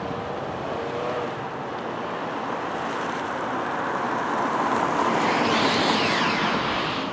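A minivan driving up fast across a parking lot, its engine and tyre noise growing steadily louder to a peak about five to six seconds in, then falling away sharply near the end.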